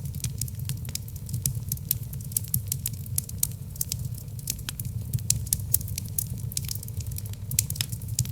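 Wood logs burning in a fireplace, crackling with many quick, sharp snaps and pops over a steady low rumble.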